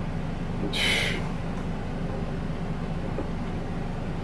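Steady low background hum, with one short breathy hiss about a second in.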